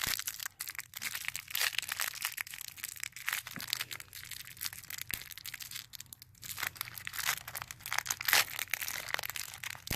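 Plastic toy packaging crinkling and crackling in irregular spurts as a small sealed surprise packet is handled and torn open.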